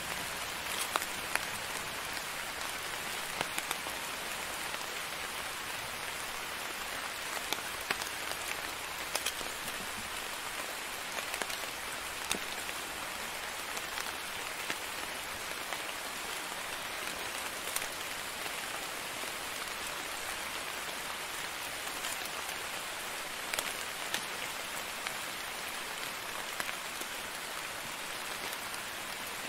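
Steady rain, an even hiss with scattered sharper, louder drop hits.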